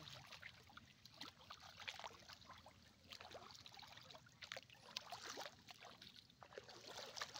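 Faint, irregular splashing and trickling of shallow muddy water as a cast net is gathered up out of it and feet wade through it.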